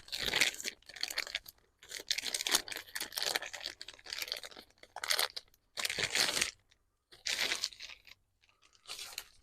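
Packaging of a new throttle cable being torn open and crinkled by hand, in irregular bursts of rustling and tearing with short pauses between.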